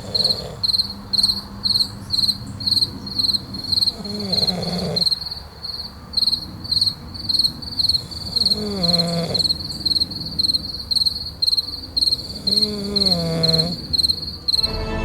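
Cricket chirping in a steady, even rhythm of about three chirps a second, a high thin pulse. Three times, a low gliding voice-like sound rises over it, each lasting about a second.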